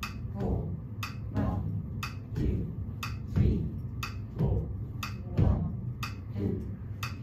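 Metronome clicking steadily at about one click a second. Between the clicks a man's voice sounds short syllables on the off-beats.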